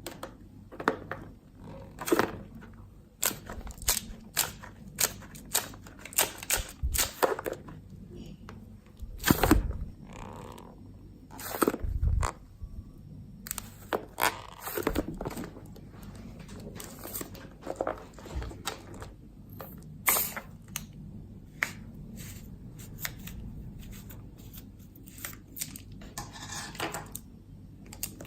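Clear slime being handled and squished by hand, giving many irregular sharp clicks and pops, with a short rustling stretch near the end.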